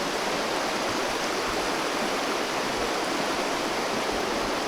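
Steady rushing of fast-flowing water, a stream or river running high and swollen after a night of heavy rain.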